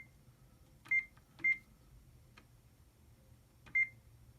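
HP 3330 all-in-one printer's control panel giving short, high-pitched key beeps as its menu buttons are pressed: four beeps of the same pitch at uneven spacing, over a faint steady low hum.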